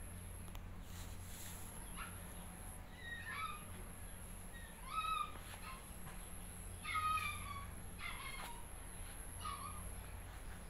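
A series of about five short, high-pitched animal calls, a second or two apart, starting about two seconds in. They sound over a steady low background hum.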